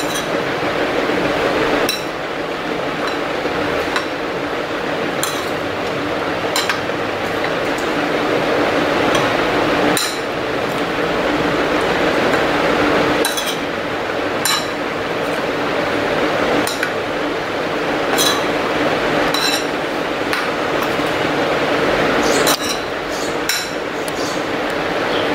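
Steel spoon stirring chopped boiled potatoes, onion and tomato in a ceramic bowl, with irregular clinks and scrapes of metal on ceramic every second or two over a steady background hiss.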